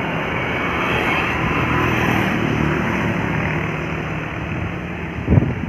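A tour bus going past on the road, its engine and tyre noise steady. There is a short thump near the end.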